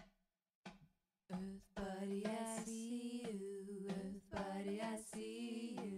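Two soft beats, like a hand drum, then from about a second in a woman singing slow, long-held notes that step up and down in pitch.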